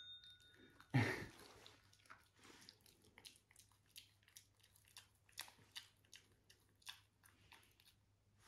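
A Maltese puppy crunching and chewing food in a series of small, irregular crunches, after a sharper noise about a second in. At the start, the ring of the bell it has just been rung dies away.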